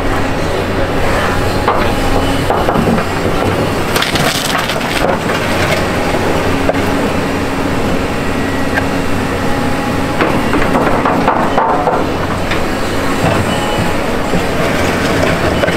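Doosan excavator's diesel engine running steadily while its demolition grapple drags and handles a steel beam through barn demolition debris, giving scraping, cracking and crunching. The clatter comes in bursts about four seconds in and again from about ten to twelve seconds.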